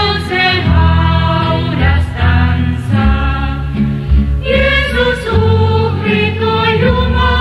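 Christian worship song: voices singing a slow melody over sustained low accompaniment.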